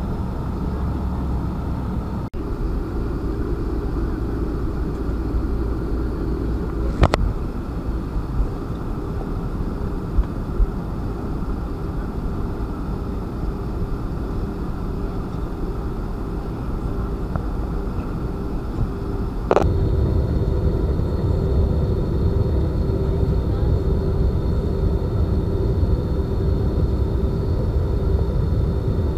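Steady drone of an airliner's engines and rushing air, with a faint steady hum over a deep rumble. A sharp click comes about seven seconds in, and about twenty seconds in there is a sharp tick and the low rumble grows louder.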